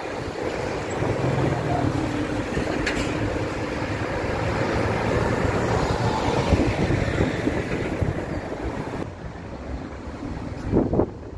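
Heavy diesel traffic passing close by: a coach, then a Scania articulated lorry, engines running with tyre noise on the road, loudest as the lorry goes past. The noise falls away near the end, with a brief louder sound just before the end.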